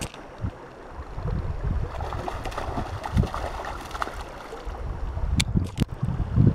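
Water sloshing with irregular low buffeting rumbles, like wind on the microphone, and two sharp clicks near the end.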